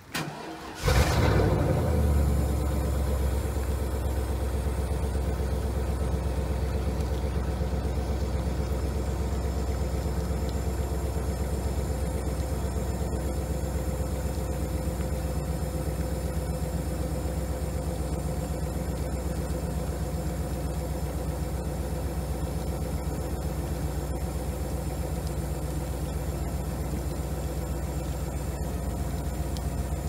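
Suburban's engine cranking briefly and catching about a second in, then idling steadily: a dead battery jump-started from a trailer battery through a plug-in jumper cable kit.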